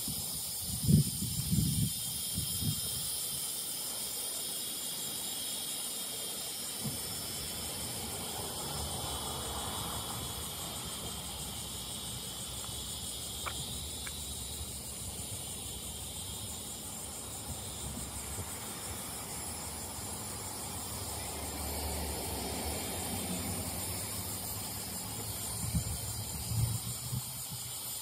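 Steady outdoor hiss with high-pitched steady bands, and a few low bumps on the microphone near the start and again near the end.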